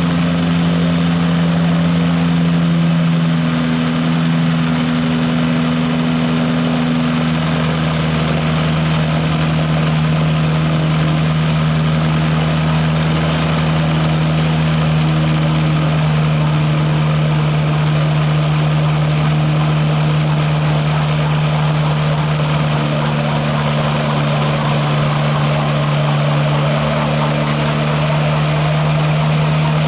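Genesis CE autogyro's engine running steadily with its pusher propeller turning, held at about 2900 rpm while the prerotator spins the main rotor up (pre-spin before takeoff).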